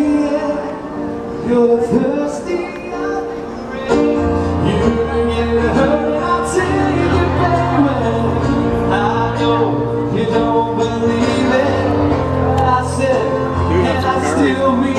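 A live band playing a song with singing; the bass comes in about four seconds in and the music gets louder.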